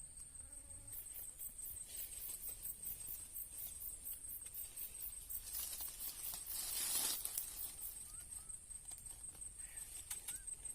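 Insects buzzing in a steady high tone with rapid even pulses, about four a second. A brief rush of rustling noise comes about six to seven seconds in.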